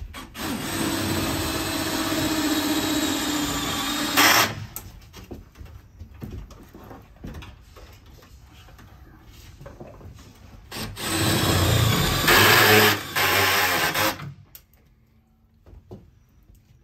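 Cordless drill/driver running at a steady speed in two spells of about three to four seconds, fastening into the van's sheet-metal wall. The first spell ends in a brief sharp burst. Light clicks and knocks from handling the part come in between.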